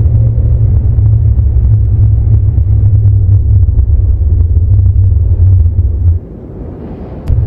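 Loud, steady low rumble of a vehicle on the move. It cuts out about six seconds in and comes back about a second later.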